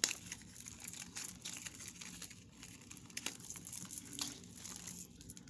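Plastic bag crinkling as costume jewelry is handled and dropped into it, with scattered light clicks.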